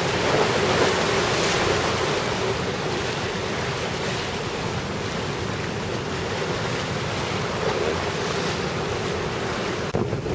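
Rough sea surf breaking and churning in a harbour channel, whipped up by a typhoon's outer circulation, with wind buffeting the microphone.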